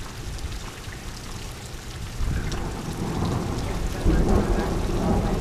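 Thunderstorm: steady rain with a low roll of thunder that builds about two seconds in and swells louder about four seconds in.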